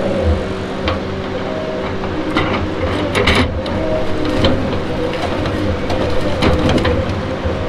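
Tigercat 234B knuckleboom log loader running, its diesel engine and hydraulics holding a steady, slightly wavering whine as the grapple swings over the log deck. Several sharp knocks cut through it, the loudest about three seconds in.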